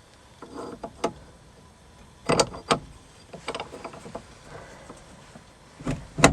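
Metal parts and hand tools clinking and knocking together as a gear puller and a cut steel plate are set up on a car's steering column. The knocks are scattered and irregular, the loudest about two and a half seconds in and just before the end.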